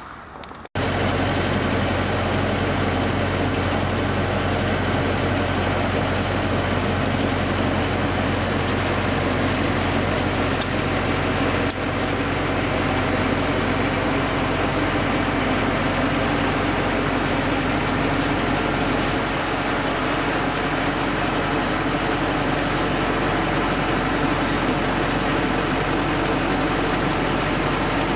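Engine of a well-pulling rig running steadily with a low hum, cutting in abruptly about a second in.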